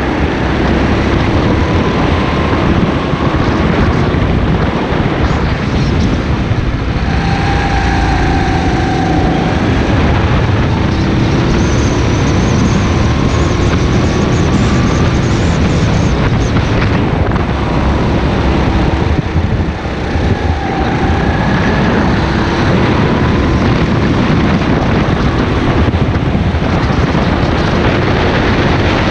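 Go-kart engine running at speed, its pitch repeatedly climbing and then falling back, heard from the kart under heavy wind rush.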